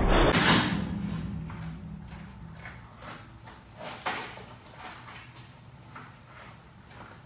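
A low rumble dies away over the first two seconds, then faint scattered knocks and clatter, with one sharper knock about four seconds in.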